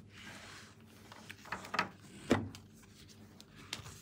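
Hands handling a large heart-shaped eyeshadow palette: soft rubbing and a few clicks, with one louder knock a little over two seconds in.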